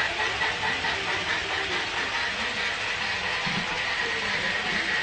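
HO-scale model trains running on the layout, their small wheels rolling steadily on the rails.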